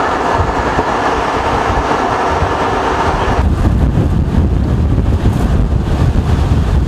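Loud steady rushing noise which cuts off suddenly about three and a half seconds in. It gives way to low, rumbling wind buffeting the microphone of a moving vehicle.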